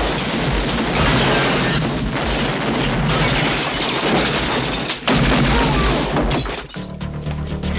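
Sustained film gunfire from a pump-action shotgun and a small automatic weapon tearing into a house, with glass shattering and wood splintering, over music. The firing stops near the end, leaving low steady music.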